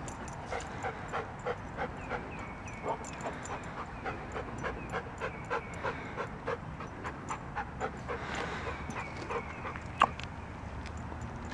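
A dog panting hard and steadily, about three breaths a second, with one sharp click about ten seconds in.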